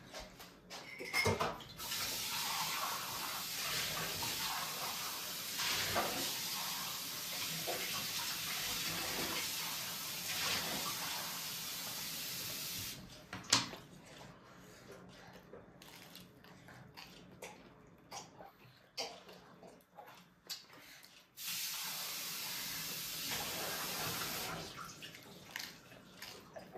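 Water running from a tap in two spells, one of about eleven seconds and a shorter one of about three seconds, each starting and stopping abruptly. Small clicks and knocks come between the spells, with one sharp knock just after the first spell ends.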